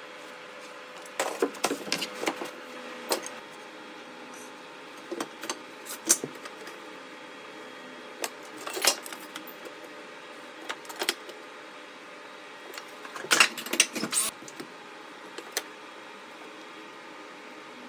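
Irregular clusters of sharp clicks and light knocks from trim carpentry work, over a faint steady hum.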